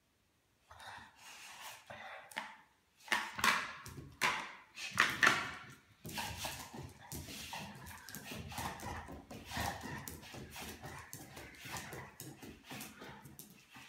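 American Staffordshire Terrier playing excitedly with a chew on a tiled floor: dog noises and scuffling, with three loud outbursts in quick succession a few seconds in, then a long stretch of continuous busy scrabbling and dog sounds that stops just before the end.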